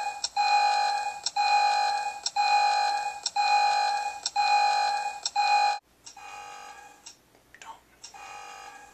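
Countdown-clock alarm beeping, one long electronic beep about every second, warning that the timer is about to hit zero. About six seconds in the beeping drops much quieter.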